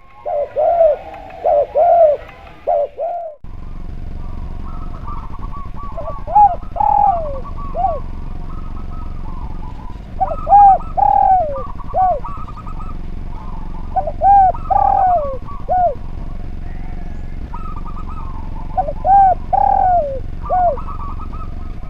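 Spotted dove (derkuku) cooing: a phrase of several arched coos, repeated about every four seconds, with fainter, higher coos from another dove behind it and a steady low hum underneath.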